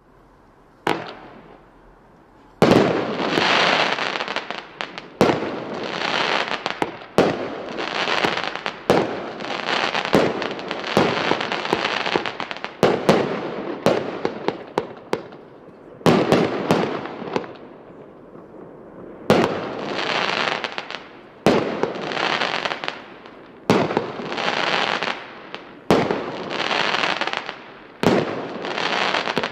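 Consumer firework battery (cake) firing shot after shot. Each shot is a sharp bang followed by a second or two of hissing, coming every one to two seconds after a single first shot about a second in.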